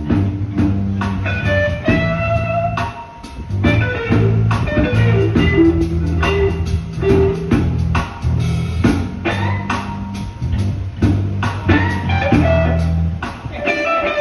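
A live band playing blues: electric guitar picking a melodic line over sustained bass guitar notes and a drum kit keeping a steady beat.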